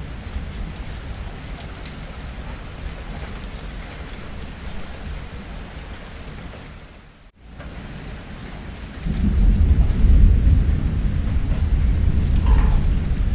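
Steady rain, briefly cutting out just past halfway. About nine seconds in, a loud, low roll of thunder comes in and keeps rumbling under the rain.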